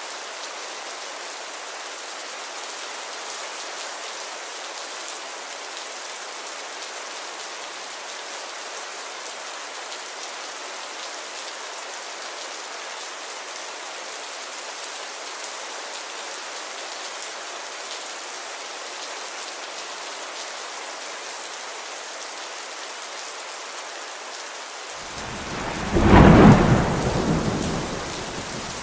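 Steady rainfall hissing, then near the end a loud clap of thunder rumbling for about two seconds before it fades back under the rain.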